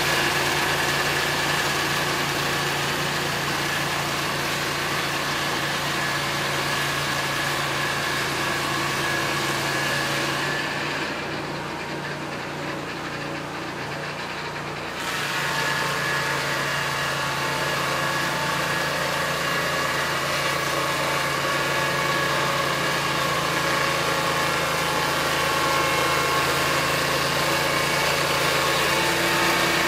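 Peterson Automated Swingblade Mill's 10-inch circular blade sawing through a log over the steady running of the mill's engine. About ten seconds in, the cutting hiss drops away for some four seconds, leaving the engine alone, then the blade is back in the wood.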